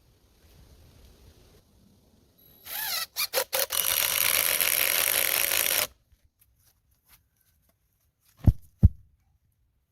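Power drill spinning up with a rising whine, stuttering a few times on the trigger, then running steadily for about two seconds before stopping abruptly. Two dull knocks follow near the end.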